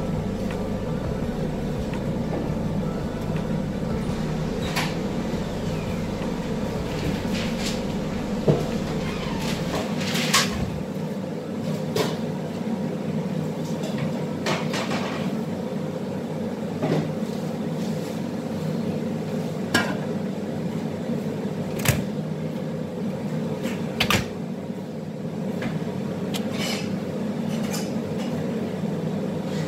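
Large aluminium cooking pots and their lids clanking and knocking now and then as they are set down and moved on the stove, over a steady kitchen hum from the burners and extractor hood.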